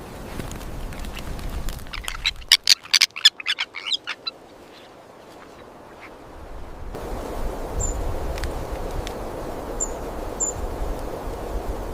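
Birds calling: a rapid run of about a dozen loud, short calls about two and a half seconds in, then a steady outdoor hiss with a few short, high chirps near the end.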